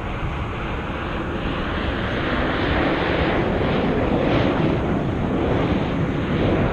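Engines of a formation of aerobatic airplanes flying overhead: a broad rushing noise that grows steadily louder as they come nearer.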